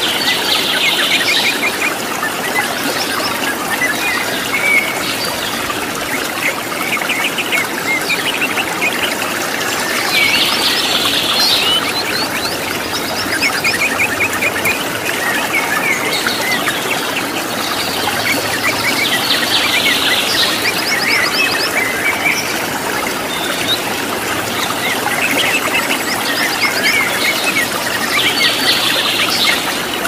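Steady rushing of a waterfall with wild birds calling over it: quick trills and runs of high chirps that come back every few seconds.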